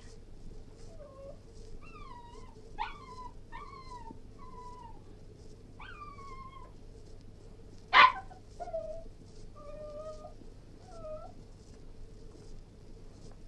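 Cairn terrier whining: a string of short, high whimpers, most falling in pitch, with one loud, sharp bark about eight seconds in.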